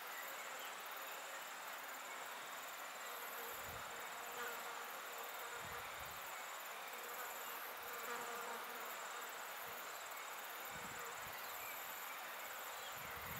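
Insects chirring steadily in the surroundings: a high-pitched, pulsing trill in repeated bursts about a second long, typical of crickets or grasshoppers. A few faint low thumps come through underneath.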